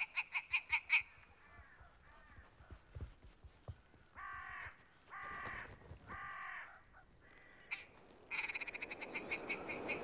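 Male willow ptarmigan calling. A fast rattling run of clucks slows down near the start, three longer croaking calls come in the middle, and another rattle that speeds up and then slows comes near the end.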